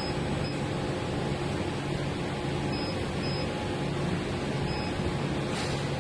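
Full-automatic turntable clipping machine running with a steady mechanical hum and hiss.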